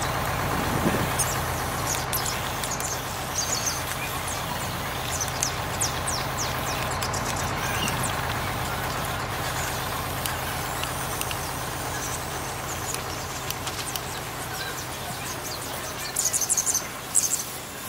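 3D-printed radio-controlled King Hauler truck driving slowly, with a steady low mechanical hum from its drive. Short high chirps come and go over it and are loudest near the end.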